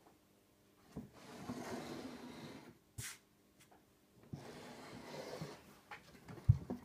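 Large LEGO Slave 1 model being turned around by hand on a shelf: two stretches of scraping as its plastic base slides on the surface, a sharp click about three seconds in, and a loud thump near the end as it is handled.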